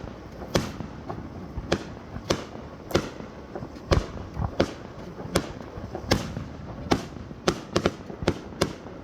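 Aerial fireworks bursting overhead in a rapid, uneven string of sharp bangs, roughly one or two a second.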